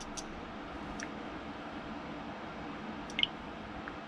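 A few faint, short clicks over steady background hiss: two just at the start, one about a second in and one a little after three seconds.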